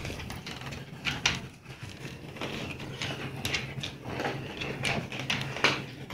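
A cat playing on a hardwood floor: a few scattered taps and scuffs from its paws and the toy, over a low steady hum.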